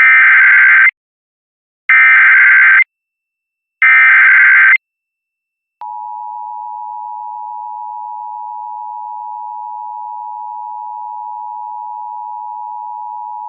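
Emergency Alert System SAME header: three one-second bursts of digital data tones, about two seconds apart, coding the start of an alert. About six seconds in they give way to the steady two-tone EAS attention signal.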